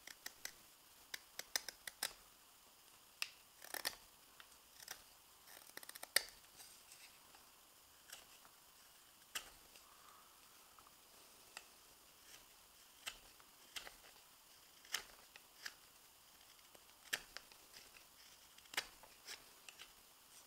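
Morakniv 106 carving knife paring thin shavings from a fresh maple spoon: a string of short, crisp slicing snicks at irregular intervals, busiest in the first several seconds, as the spoon is finished.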